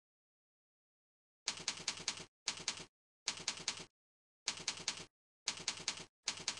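Software mouse-click sound effect of the kind CursorXP adds to the cursor: quick clusters of sharp, typewriter-like clicks, about six clusters, with dead silence between them. The first cluster comes about a second and a half in.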